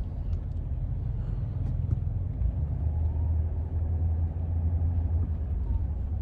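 A car in motion heard from inside the cabin: a steady low rumble of engine and road noise.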